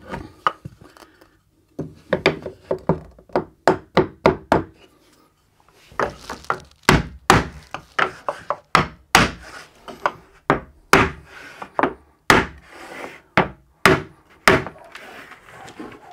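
Repeated knocks on a wooden batten plank being tapped into place on the wall, a series of sharp irregular hits about one or two a second, starting about two seconds in. It is a freshly glued vertical batten being knocked level and flush.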